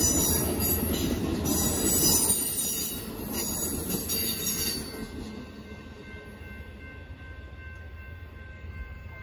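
Amtrak bilevel passenger cars rolling over a road grade crossing: a rumble with high-pitched wheel-on-rail noise, fading out about five seconds in as the last car clears the crossing.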